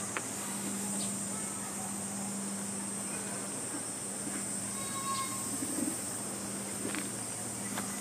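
Steady high-pitched insect drone with a faint low hum beneath it and a few soft clicks and brief chirps.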